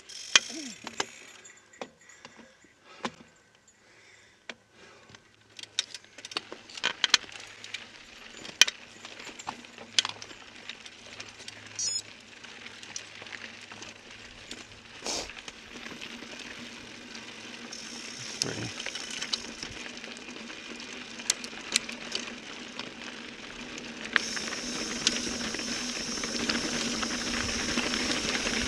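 Mountain bike rolling over a rocky dirt trail: scattered clicks and rattles from the bike and tyres on loose stones. A steady rush of tyre and wind noise builds as the bike picks up speed downhill, louder in the last few seconds.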